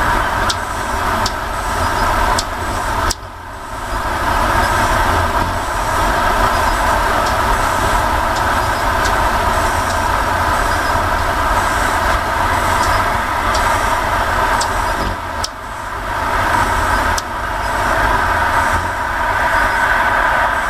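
Road traffic: a motor vehicle engine running steadily, with brief drops in level about three seconds in and again around fifteen seconds.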